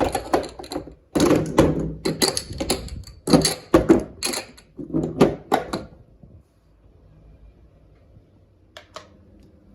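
Kitchen jars and containers being handled and set down in a cupboard: a quick run of knocks and clatters for about six seconds, then quiet, with two light clicks near the end.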